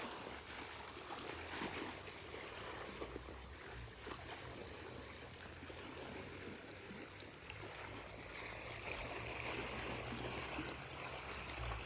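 River water flowing, a steady rushing hiss that swells a little in the second half.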